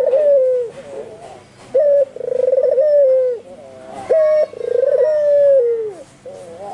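White albino puter (Barbary dove) cooing over and over at full voice, three times: each call is a short clipped note followed by a long rolling coo that drops in pitch at the end.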